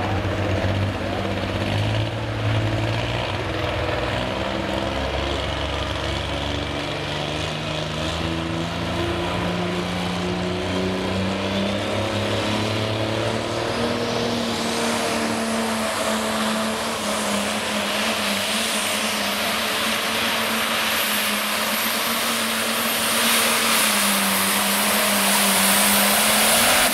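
Red International Light Pro pulling tractor's diesel engine running at the line, building up from about halfway as a whistle rises to a high steady whine, like a turbocharger spooling. It is loudest near the end as the tractor pulls the sled.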